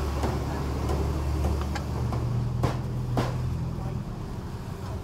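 Steady low engine hum, its pitch stepping up about two seconds in, with two sharp knocks a little past halfway.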